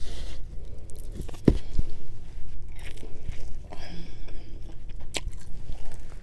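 A person biting into and chewing thin-crust pizza, with crunches and a few sharp clicks, the strongest about one and a half seconds in and again near the end.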